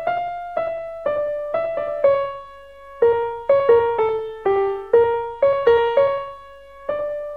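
Sampled acoustic piano (Ableton Live 8's Keys-Acoustic Piano preset) playing back a just-recorded MIDI clip: a simple melody of about sixteen single notes, each struck and fading, the last one held and dying away near the end.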